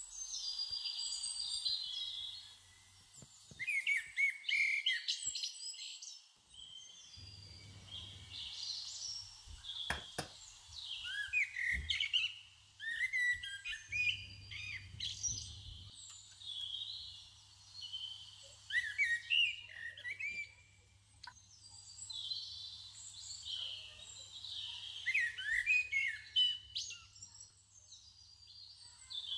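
Small birds chirping and singing, short trills and tweets coming in clusters every few seconds.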